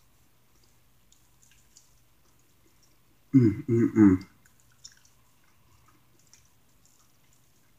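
Faint wet chewing and mouth clicks from eating a chicken wing off the bone. About three seconds in comes a short, louder three-beat voiced hum, "mm-mm-mm".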